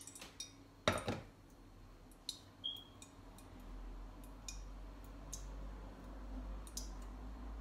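Kitchen handling sounds: a sharp clink about a second in, then a few scattered small ticks and clicks. A low rumble comes in about halfway.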